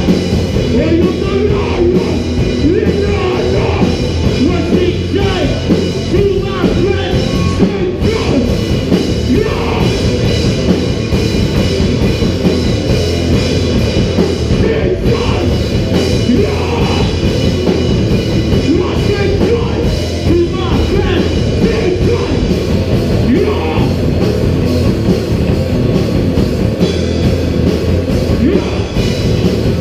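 Live heavy metal band playing, loud and dense without a break: electric guitars and a drum kit.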